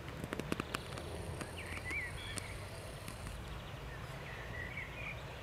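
Mallard ducklings giving a few short, soft peeps in two little runs, with a quick series of sharp clicks about half a second in, over a steady low background hum.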